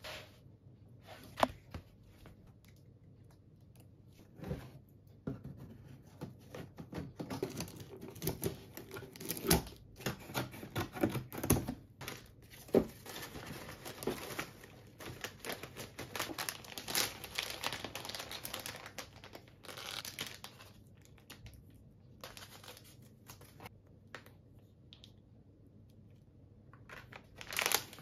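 Cardboard shipping box being opened and plastic-wrapped packages handled: irregular crinkling and rustling of plastic, with sharp rips and small knocks against the cardboard, busiest in the middle stretch and quieter near the start and end.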